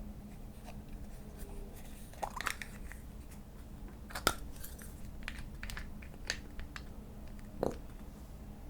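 Hands squishing and kneading slime, with scattered sticky clicks and small pops. The loudest pops come about two, four and seven and a half seconds in.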